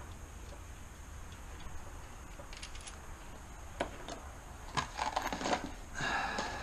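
Scattered metallic clicks and clinks of a ratchet wrench and socket working on engine bolts, sparse at first and coming more often in the second half.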